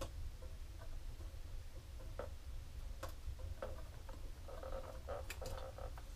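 Faint scattered clicks and brief light squeaks from a hand-turned rod-wrapping jig as the rod blank is rotated and the thread is laid on and pushed into place, over a low steady hum.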